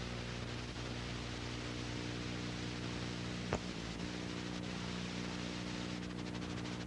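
Steady hiss with a low electrical hum, with one sharp click about three and a half seconds in.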